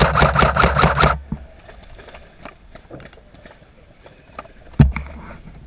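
An ICS L85A2 airsoft electric rifle firing a full-auto burst of about a second, a fast rattle of roughly a dozen shots a second. Fainter scattered shots follow, then one sharp crack near the end.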